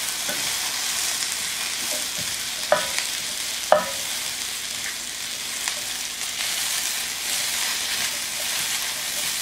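Sliced onions and bell peppers sizzling steadily in a hot grill pan as they are stirred and turned with tongs to char. Twice, about a second apart, the tongs click sharply against the pan.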